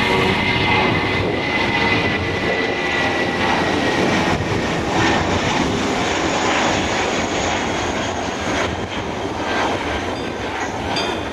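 Airbus A319's twin jet engines at take-off thrust as the airliner climbs away: a steady roar with a high whine that falls slightly in pitch over the first few seconds, easing a little toward the end.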